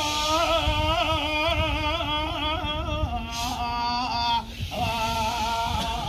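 A solo voice singing a long, ornamented melodic line with strong vibrato. It breaks off briefly about four and a half seconds in, then begins a new phrase, over a low rumble of background noise.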